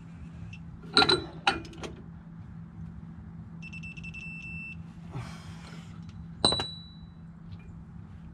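Electronic torque wrench beeping rapidly for about a second as the axle nut reaches the 100 ft-lb setting. It is set between sharp metallic clanks of the steel socket and wrench, two about a second in and one near the end, each with a short ringing tail.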